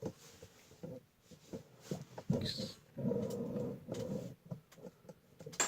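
Knocks, clicks and scraping from a folding card table whose leg was collapsing, as the leg is set back in place. About halfway through, a low drawn-out voice-like sound runs for a couple of seconds.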